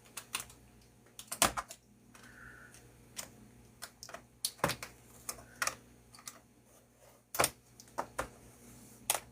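Plastic clips of an HP Envy x360 laptop's screen assembly popping and a thin blade clicking against the plastic as it is pried around the seam: irregular sharp clicks, with a few louder snaps.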